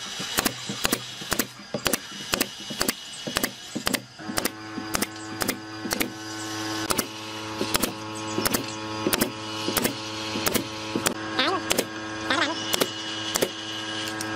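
Pneumatic brad nailer firing brads into pine slats, a sharp shot about twice a second. A steady hum with several tones starts about four seconds in.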